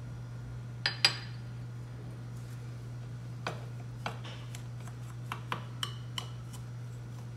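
A metal spoon and glassware clinking: one sharp glass clink about a second in, then lighter taps and scrapes as melted margarine is spooned from a small glass pot into a glass bowl of crushed biscuit crumbs and stirred in. A steady low hum runs underneath.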